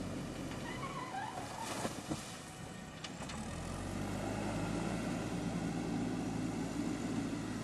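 JCB 3DX backhoe loader's diesel engine running under work, easing off about a second in and picking up again louder from about three and a half seconds. There are a few sharp knocks around two to three seconds in.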